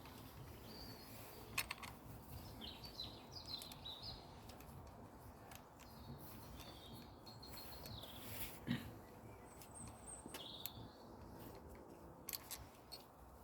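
Birds chirping faintly in the background, with a few sharp clicks and knocks from a wrench working on the motorcycle's handlebar bolts.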